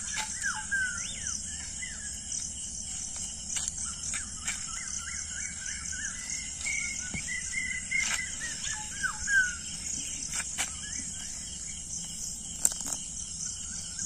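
Birds chirping and whistling in short calls throughout, over a steady high-pitched hiss, with a few faint clicks.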